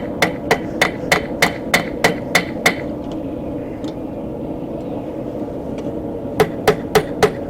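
Hand hammer striking hot steel bar stock on an anvil, each blow ringing, while drawing the bar's end to a chisel point. About nine steady blows at roughly three a second, a pause of a few seconds, then four quicker blows near the end, over a steady low hum.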